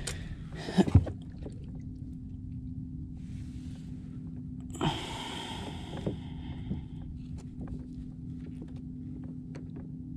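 Handling noise as a caught fluke is held and measured on a plastic kayak. Sharp knocks come about a second in, then rustling scrapes around the middle, and scattered small ticks follow, all over a steady low hum.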